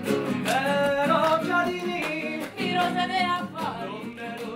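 A song: a voice singing a melody with wavering held notes over an acoustic guitar.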